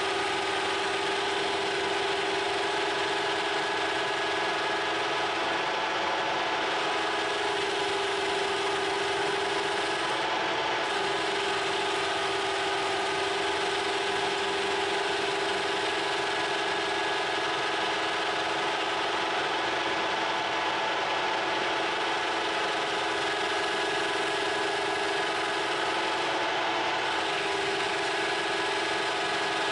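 Metal lathe running steadily with an even motor and gear whine and a constant hiss, turning a small metal spacer.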